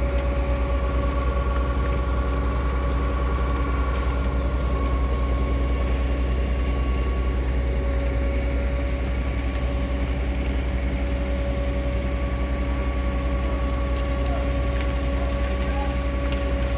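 Heavy diesel truck engine running at a steady speed, a deep even rumble with a steady tone above it, typical of a concrete pump truck or ready-mix truck idling during a concrete pour.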